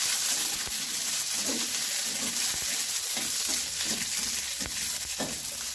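Garlic, onion and bird's-eye chilies sizzling in hot oil in a wok, with a steady hiss. A metal spatula scrapes and taps against the pan now and then as they are stirred.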